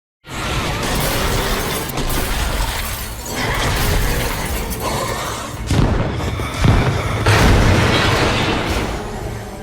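Sound effect of the kaiju Zigra: a dense, noisy rush over a deep rumble with booming and crashing. It swells in surges about six and seven seconds in, then fades out.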